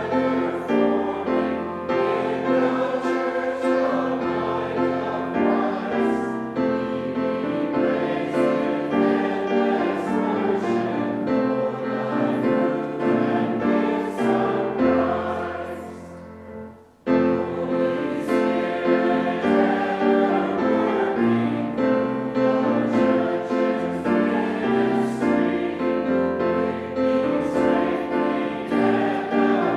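Choir singing with instrumental accompaniment. The music fades out about halfway through, then starts again abruptly.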